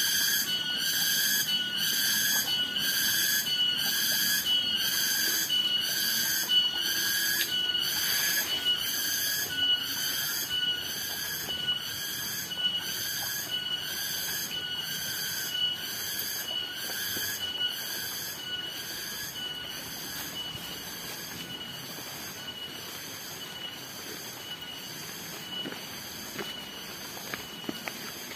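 Insects calling: a loud, high, buzzing pulse repeating about one and a half times a second without a break, growing fainter in the last third.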